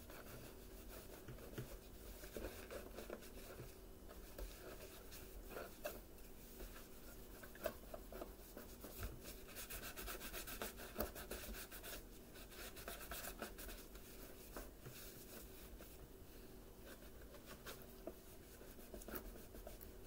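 A folded cloth wetted with rubbing alcohol rubbed back and forth over the plastic base hood of a Bissell PowerForce Bagless vacuum, buffing out scratches: a quiet, continuous scrubbing that turns faster and denser around the middle.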